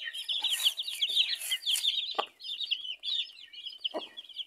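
A flock of young chicks peeping all the while, a dense chatter of short, high cheeps, while the broody hen minding them gives a low cluck about two seconds in and again near the end.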